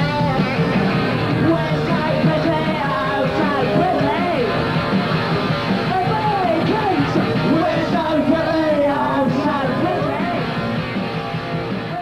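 A punk rock song playing, with a singing, shouting lead vocal over a full rock band.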